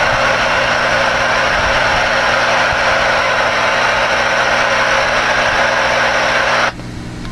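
Steady static hiss from a ten-meter CB transceiver's speaker, heard over a low steady hum, as an incoming signal holds the receiver open. The hiss cuts off suddenly about six and a half seconds in, leaving only the hum.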